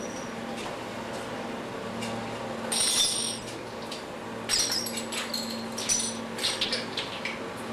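Metal bottle caps clinking on a concrete garage floor: one ringing tink about three seconds in, then a quick string of tinks and rattles from about halfway through, over a faint steady low hum.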